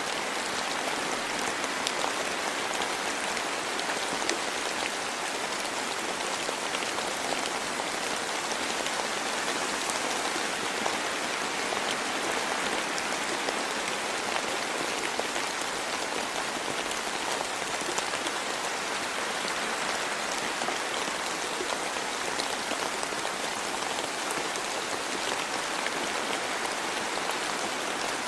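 Steady rain falling in a forest, an even hiss with fine scattered drop ticks.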